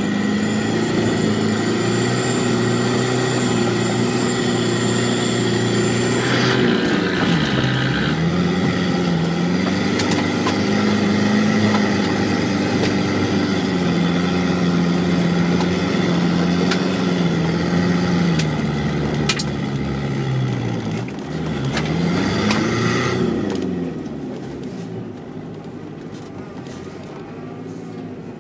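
An off-road vehicle's engine revs hard as it labours through deep snow. The engine note rises and falls several times as the driver works the throttle, then eases off a few seconds before the end.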